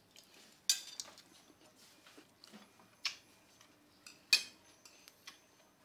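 Metal spoons clinking against ceramic plates and bowls during a meal: about five short, sharp clinks, the loudest about four seconds in.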